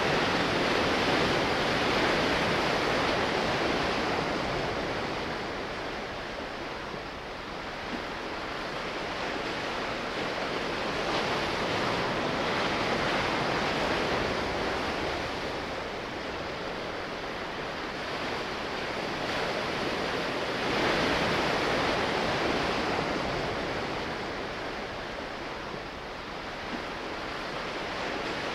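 Sea waves washing, the rush swelling and easing slowly every several seconds.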